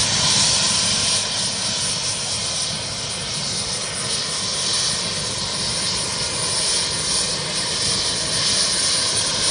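Helicopter running steadily with a constant rushing noise.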